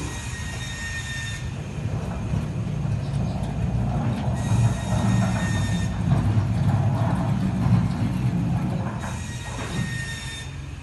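Automatic sliding gate rolling along its rail. A steady low rumble builds and then eases near the end, and a high thin squeal comes in three times, about a second and a half each time.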